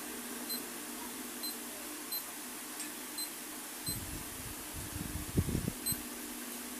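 Digital smartwatch beeping at each button press while its date and time are being set: about six short high beeps, roughly a second apart. From about four seconds in, low bumps and rumbles come in, loudest near the end.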